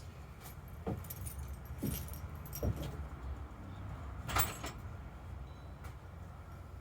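Irregular metallic clinks and small rattles of metal objects being handled, with the loudest clatter a little past halfway.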